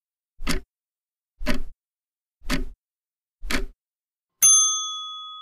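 Ticking-clock countdown sound effect, one tick a second, ending about four and a half seconds in with a single bell ding that rings out and fades, signalling that the time to answer is up.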